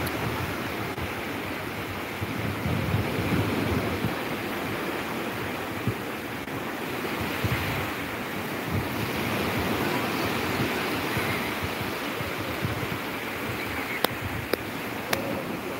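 Small waves breaking and washing up the shore, a steady rush that swells and eases. Three short sharp clicks come near the end.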